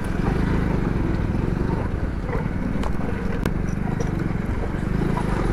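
A 100cc single-cylinder four-stroke motorcycle engine running steadily while riding, with a fast, even beat.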